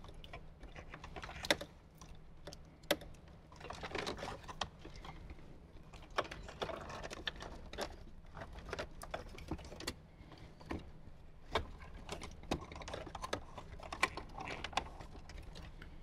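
Irregular clicks, knocks and rustling as wiring harnesses and plastic plugs are tucked into a Jeep Wrangler JK's plastic dash and a metal radio chassis is pushed back into the dash opening.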